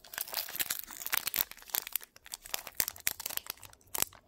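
Foil Pokémon booster pack wrapper being crinkled and torn open by hand: a dense, irregular run of crackles and rustles.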